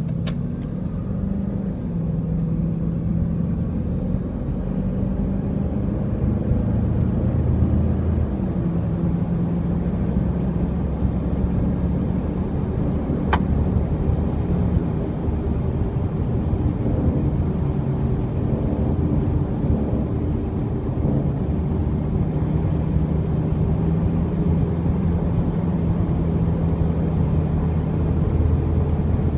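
2002 Jeep Grand Cherokee Quadra-Drive drivetrain heard from inside the cabin at road speed: a steady rumble of road and drivetrain noise with a low grinding drone that comes and goes. The owner suspects the transfer case.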